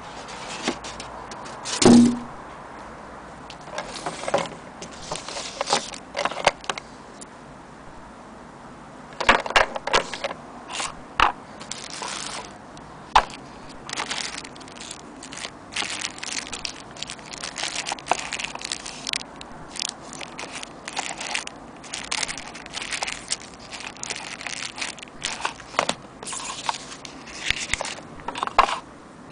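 Plastic wrapping and bags crinkling and rustling as packed overlock presser-foot attachments and their foam-lined box are handled, in irregular crackles. A louder bump comes about two seconds in.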